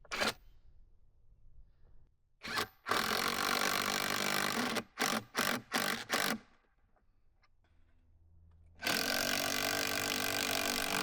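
Power drill driving a 3/8-inch lag screw into a wooden post. It runs in short bursts, then runs steadily for about two seconds, pulses four times, stops, and near the end runs steadily again for about three seconds.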